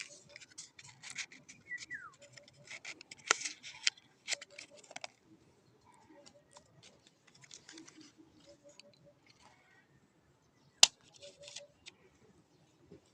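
Plastic toy gun being handled: scattered clicks and scraping, with one sharp click about eleven seconds in.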